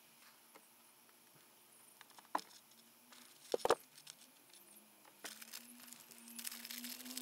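A few sharp clicks and knocks of a screwdriver and plastic trim being handled at a car's rear parcel shelf, with a quick double click about halfway through. Paper tissue rustles and crinkles through the last couple of seconds, over a faint steady hum.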